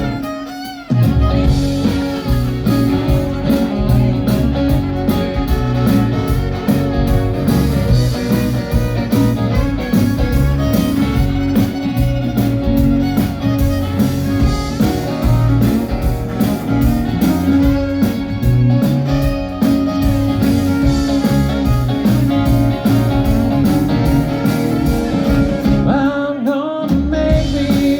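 A live band playing an instrumental break between sung verses, with a brief drop in level just after the start.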